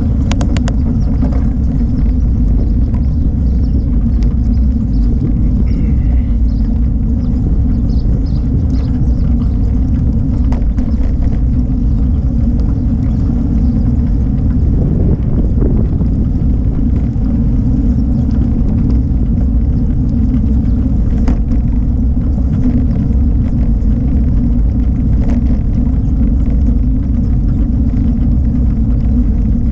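Steady low rumble of wind buffeting the microphone of an action camera carried on a moving bicycle, with the bike's rolling noise underneath.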